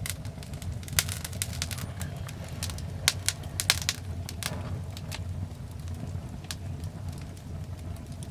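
Wood fire burning in a fireplace, crackling with sharp pops over a steady low rumble. The loudest pops come about a second in and in a cluster around three to four seconds in.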